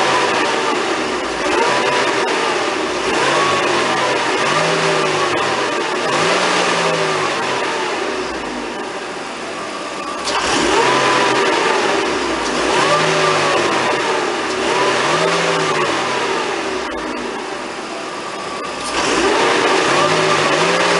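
Supercharged 2.3-litre four-cylinder engine of a 2000 Mercedes-Benz C230 Kompressor being revved over and over, each rev rising and falling in about a second and a half, in runs of several revs with short lulls between.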